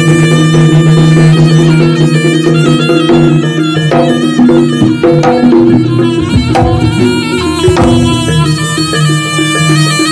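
Live jaranan gamelan music: a reedy wind instrument, in jaranan the slompret shawm, plays a sustained melody that steps from note to note over a steady low held tone, with kendang drum strokes and percussion.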